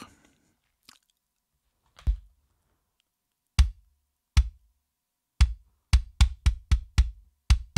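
Kick drum track from a rock mix played back on its own: short, tight kicks with the sustain cut away by a transient designer, then compressed and hard-clipped. A few scattered hits first, then from about two-thirds in a fast even run of about four kicks a second.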